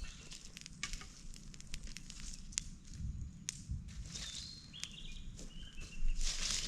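Dry twigs and leaves crackling and rustling, with scattered sharp snaps and a louder burst of crunching about six seconds in.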